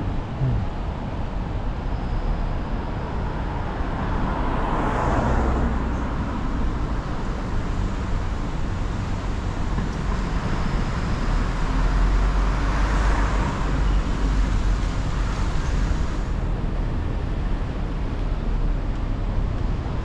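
Road traffic: a steady rumble of cars and trucks on the street, with two vehicles swelling past, about five seconds in and again about thirteen seconds in.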